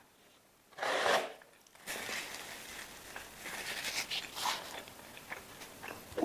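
A crunchy bite into crisp food about a second in, followed by crackly chewing close to the microphone.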